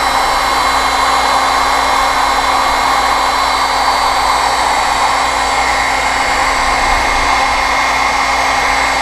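Handheld electric heat gun (a cheap Harbor Freight model) running steadily, a continuous blowing hiss with a faint steady whine from its fan.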